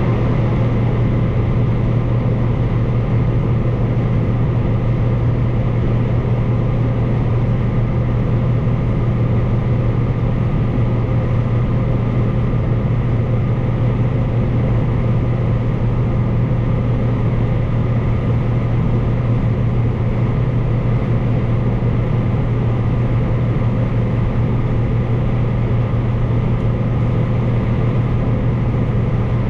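Combine harvester running steadily while picking corn: an even engine and machinery drone with a strong low hum, unchanging throughout.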